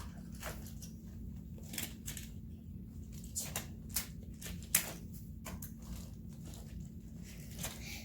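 Plastic magnetic building tiles clicking and clacking as they are handled and snapped together, in irregular sharp clicks, one louder clack near the middle.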